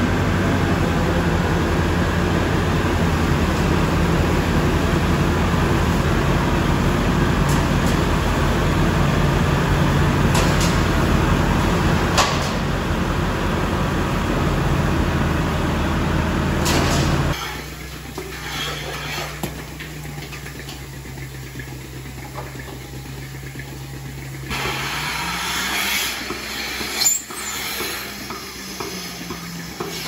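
Tractor-driven straw bedding blower running steadily, its engine and fan blowing chopped straw over the cows' bedding. About 17 seconds in, it cuts off abruptly to a quieter, steady machine hum.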